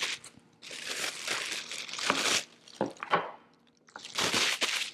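Plastic packaging crinkling as it is handled, in two stretches, with a couple of short knocks between them as hard plastic stove feet are set down on a board.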